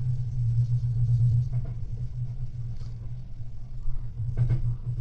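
Merseyrail Class 777 electric train running at speed, heard from inside the carriage: a steady low rumble with a few short knocks, the loudest near the end.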